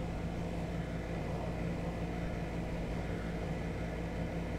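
Steady low electrical hum with a light hiss, from a running appliance or fan.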